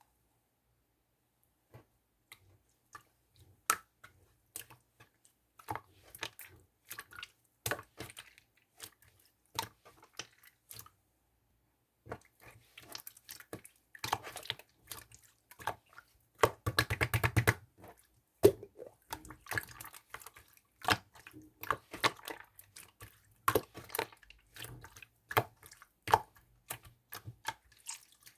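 Slime being squeezed and worked by hand: an irregular stream of wet clicks and pops from trapped air, with a denser run of crackling about 17 seconds in.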